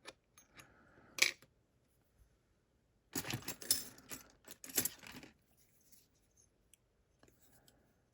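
Small metal lock parts being handled: a sharp click about a second in, then two short spells of clicking and rustling about three and five seconds in, with a few faint ticks after.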